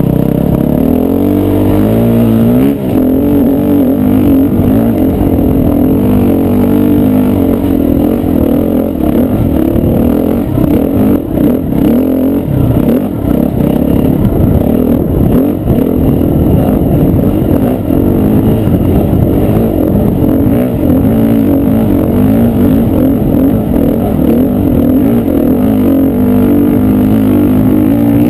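KTM 350 EXC-F dirt bike's single-cylinder four-stroke engine running hard on an uphill trail, its pitch rising and falling continually as the throttle opens and closes.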